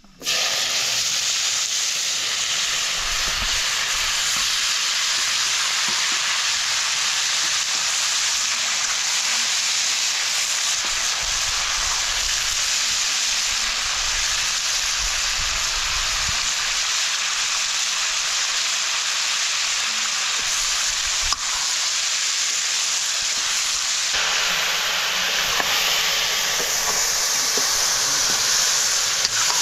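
Food frying in hot oil in a cooking pot, a steady sizzle that turns a little brighter near the end.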